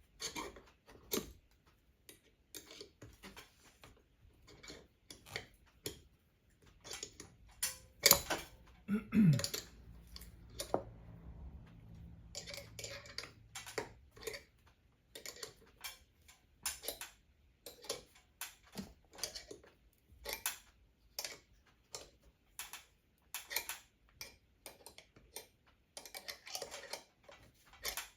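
Irregular light clicks and taps of hardware and hand tools being worked while mounting a ceiling spring balancer, with a louder knock about eight seconds in followed by a brief falling whine.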